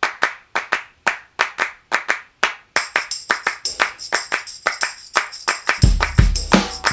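Background music opening with a rhythmic pattern of hand claps. About three seconds in, a tambourine-like jingle joins, and near the end a bass drum and bass come in.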